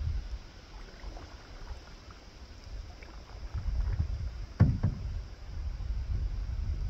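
Canoe on calm lake water: a low, uneven wind rumble on the microphone with faint light water sounds. A sharp double knock comes a little past halfway through.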